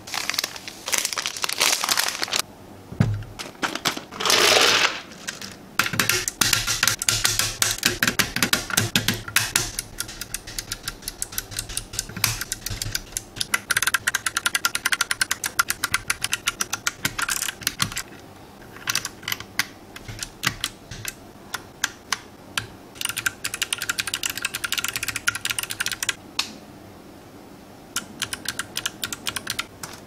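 Typing on a SIKAKEYB SK1 aluminium mechanical keyboard: rapid runs of key clicks broken by short pauses, with a brief louder rustling noise about four seconds in.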